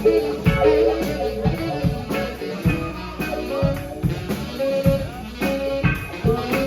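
A live band playing an instrumental passage: a guitar melody over a drum kit keeping a steady beat.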